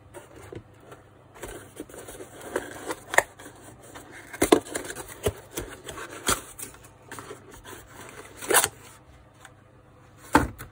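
A cardboard parts box being opened and handled on a workbench, a ratcheting wrench set down beside it: rustling and scraping of cardboard broken by a handful of sharp knocks, the loudest about four and a half and eight and a half seconds in.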